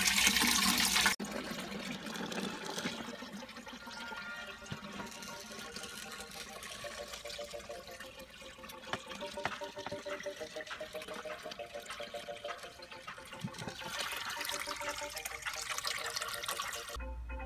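Tap water poured from a bucket into a glass aquarium, splashing onto the gravel and into the rising water as the tank fills. It is louder for about the first second, then steadier and quieter.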